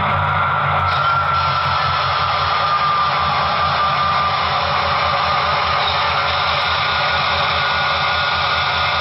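HO-scale model diesel locomotive's sound decoder playing a steady diesel engine sound through its small speaker as the model runs, with a continuous hiss of running noise over a pulsing low rumble.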